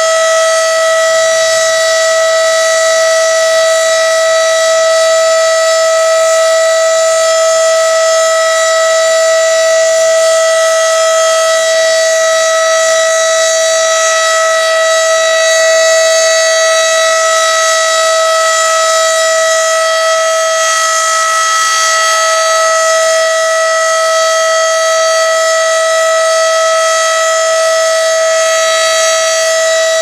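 Federal Signal Model 5 outdoor warning siren sounding its steady alert signal for a test: one loud, unbroken tone held at a single pitch.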